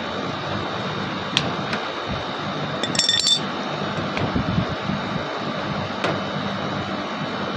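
Steady running hum of a split air conditioner's outdoor condenser unit, cooling after its PCB has been bypassed. About three seconds in there is a brief ringing metallic clink, and a few light clicks come while the plastic terminal cover is handled and fitted back.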